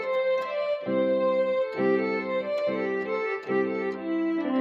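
Electronic keyboard playing an instrumental interlude in an organ-like voice: held chords changing roughly once a second, with a melody moving above them.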